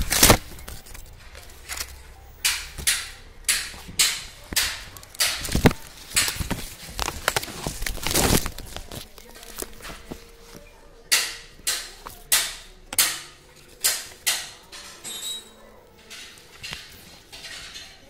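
Leaves and twigs brushing and rustling against a phone held in among the branches of a leafy shrub. It comes as a run of sharp swishes, the loudest right at the start, then a fairly even series of about two a second in the second half.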